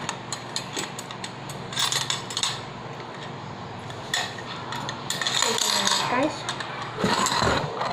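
Metal spoon clinking and scraping against a bowl while someone eats, in scattered short clicks and brief scrapes.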